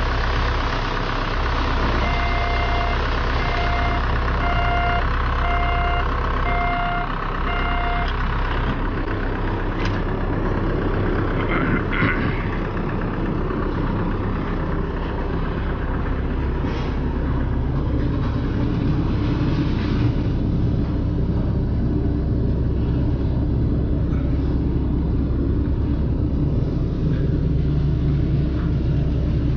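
Heavy diesel truck engine running steadily at a construction site, with a reversing alarm beeping about once a second for several seconds, starting about two seconds in.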